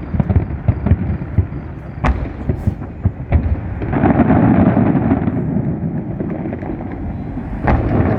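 Fireworks going off: a rapid string of booming bangs, with a dense stretch of rumbling crackle from about four to six seconds in.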